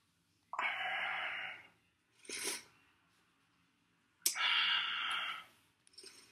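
A man breathing out heavily twice, each breath lasting about a second, with a short breath between them. These are exasperated sighs.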